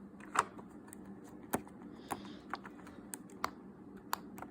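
Silicone pop-it fidget toy being pressed: about eight soft, irregular clicks as its bubbles pop, over a faint steady hum.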